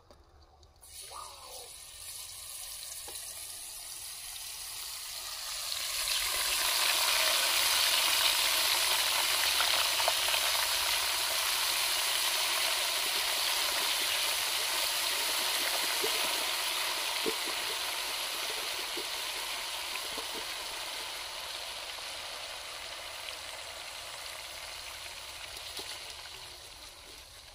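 Hot oil in a steel karai sizzling as spice-marinated small crabs are tipped into it. The hiss builds from about a second in, turns loud about six seconds in as the bulk of the crabs drops in, then slowly eases off.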